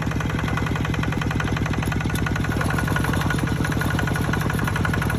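Engine running steadily at idle, with a rapid, even chugging.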